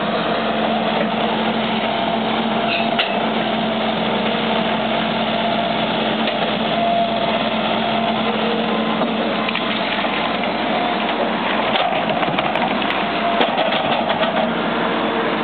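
A tracked hydraulic excavator's diesel engine runs steadily under load as the bucket scoops and swings dirt, with a few sharp knocks about three seconds in and again toward the end.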